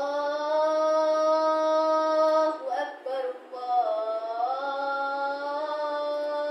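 A boy's solo voice calling the adhan, the Islamic call to prayer: two long drawn-out chanted phrases with a short breath between them about two and a half seconds in, the second dipping and then rising in pitch before holding steady.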